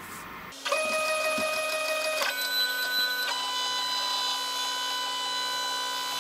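Desktop CNC machine's stepper motors driving the axes: a steady electronic whine that starts about half a second in and jumps to a new steady pitch twice, with a constant low hum underneath.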